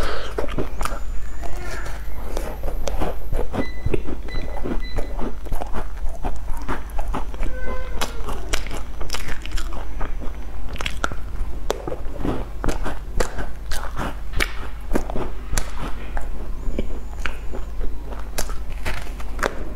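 Close-miked biting and chewing of sesame-crusted round pastries with a soft creamy filling. Many small, crisp, irregular crunches follow one another quickly throughout.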